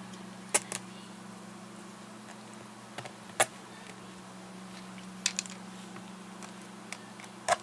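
Scattered sharp clicks and taps of small screws and a screwdriver against the plastic case of a handheld GPS as its back screws are put in, the loudest about three and a half seconds in, over a steady low hum.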